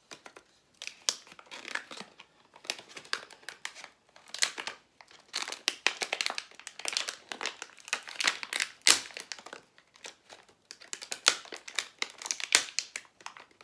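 Sealed packaging of a power bank crinkling and tearing in many irregular crackles as it is worked open.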